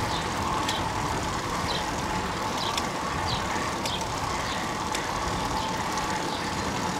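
Steady rushing noise of road bikes climbing a steep hill: tyres on asphalt and moving air on the microphone. A few short high chirps and light clicks come through it.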